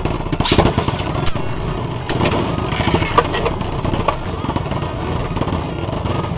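Two 3D-printed Beyblade tops, Punish and DragonKin, spinning in a plastic stadium with a steady whirring scrape, clashing with sharp clacks several times during the first few seconds.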